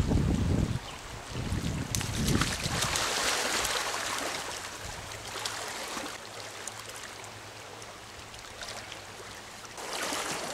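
Stream riffle running over stones, a steady hiss of fast shallow water, with wind buffeting the microphone in the first second. The water noise is strongest a few seconds in, eases off, and picks up again briefly near the end.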